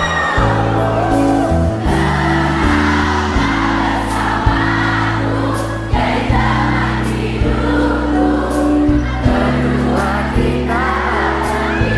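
Live pop band playing, with a regular drum beat and held bass notes, while a group of voices sings without clear words, as backing singers or an audience singing along.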